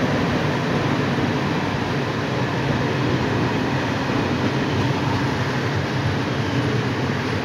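Loaded open coal wagons of a freight train rolling past: steady noise of steel wheels running on the rails.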